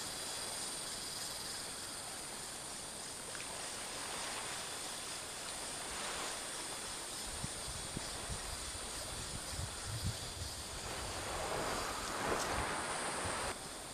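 Steady seaside ambience of wind and small waves washing over a shallow shore. Low wind buffeting on the microphone comes in from about halfway through.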